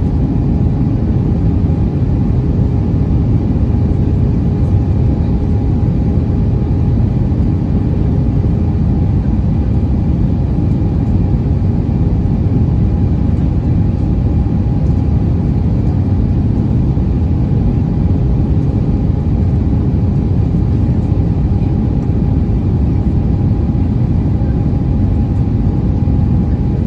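Cabin noise inside an Airbus A320 in flight: the steady rush of air and drone of the jet engines, with a faint steady hum running through it.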